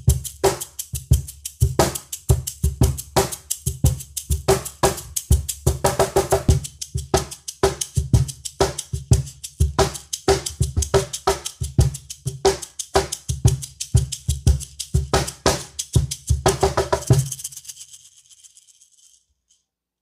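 An LP Americana Series cajón with wire snares played in a steady groove with one hand while the other shakes a wooden Meinl shaker: deep bass thumps and snappy slaps with the shaker's rattle over them. It is heard first through a Tascam TM-50C shotgun condenser overhead, then through a Shure SM57 dynamic mic. The playing stops about 17 seconds in and the last ring fades out over the next second or two.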